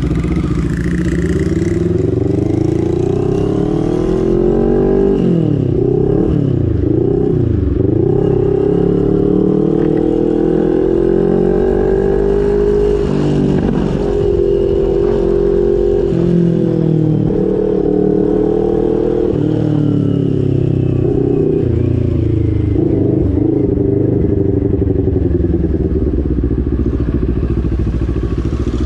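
CFMoto NK400 motorcycle's parallel-twin engine through its aftermarket exhaust muffler, ridden in traffic. The exhaust note climbs and falls with the throttle, with sharp drops in pitch about five and thirteen seconds in, and otherwise holds a fairly steady cruising tone.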